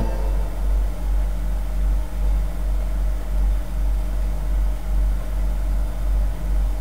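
Cassette playback noise in the silent gap between two songs: a steady low hum that swells slightly about once a second, with faint tape hiss above it.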